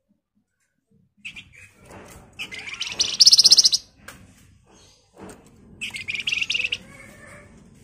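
Caged Javan fulvetta (the 'Flamboyan' or wergan Jawa of Indonesian bird-keeping) calling: scattered sharp chips, then two rapid high-pitched chattering trills, one about two and a half seconds in and a slightly softer one near six seconds.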